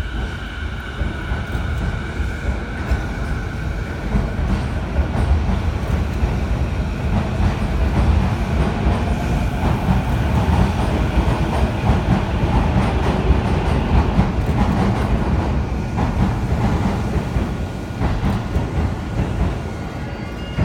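Electric commuter train pulling out of the station platform alongside, wheels clattering over the rail joints. A steady whine fades in the first few seconds, then a heavy rumble builds and eases off again.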